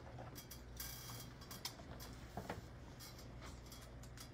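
Faint room tone: a steady low hum with scattered small clicks and brief rustles, a little denser about a second in and again around two and a half seconds.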